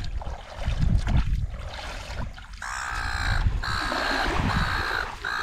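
A bird cawing: four drawn-out harsh calls starting about halfway through, over a low steady rumble.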